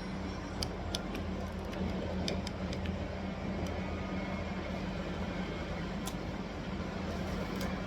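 Steady low machine hum in a metal shop, with a few light, sharp clicks and taps scattered through it.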